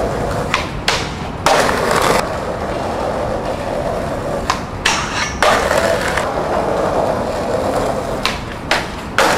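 Skateboard wheels rolling on concrete, with several sharp clacks and knocks of the board along the way, including two longer loud stretches.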